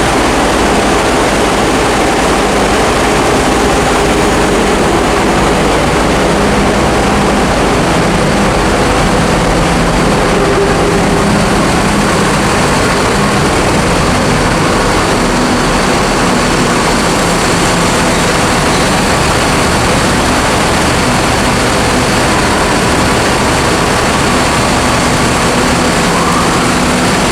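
Heavy engines and machinery running with a loud, steady drone inside a ferry's vehicle deck.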